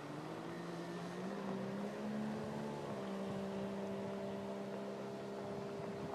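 Small two-stroke racing motorboat engine running out on the water, its pitch stepping up twice over the first three seconds as it speeds up, then holding steady.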